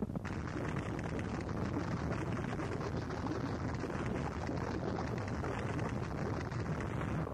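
Gorenoise track: a dense, steady wall of harsh noise with no clear pitch or beat.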